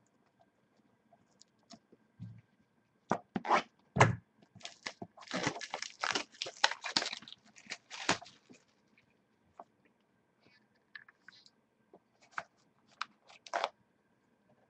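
Crinkling and tearing of trading-card packaging: plastic wrap and card-pack wrappers being ripped open. There are a few sharp clicks about three seconds in, a dense stretch of crackling tearing in the middle, and scattered rustles and clicks after it.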